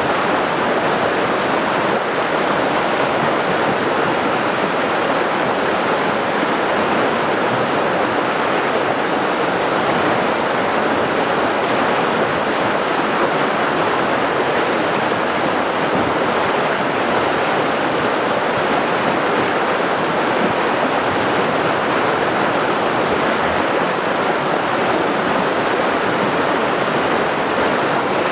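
Whitewater rapids rushing over boulders: a loud, steady, even rush of water.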